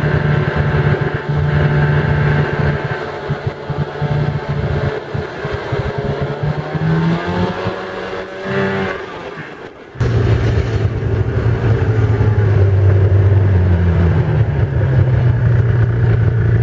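Snowmobile engine running under way across snow. About eight seconds in it revs up and then eases off; after an abrupt break near the middle it runs on steadily at a lower pitch.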